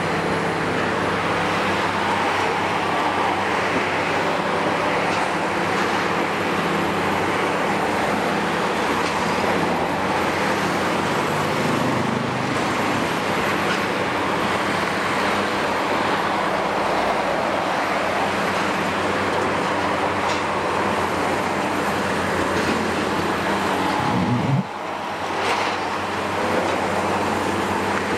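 Kiesel KMC 600 demolition excavator's Isuzu six-cylinder diesel running steadily under load as the long boom moves, with a brief drop near the end.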